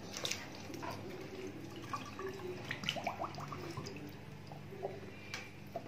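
Water sloshing and dripping in a steel bowl as a whole raw duck is lowered in and pushed under by hand, with small scattered splashes and light ticks.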